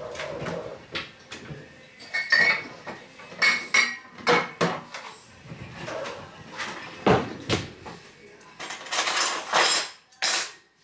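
Kitchen storage being rummaged: a pantry cupboard handled, with glass jars and bottles clinking against each other on the shelves. Near the end comes a longer rattle of metal cutlery as a cutlery drawer is searched.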